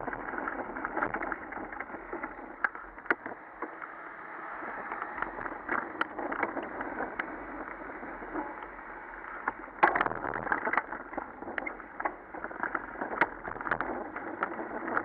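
Mountain bike riding over rough, wet city pavement: a steady rush of wind and tyre noise with frequent knocks and rattles from bumps. The loudest knock comes about ten seconds in.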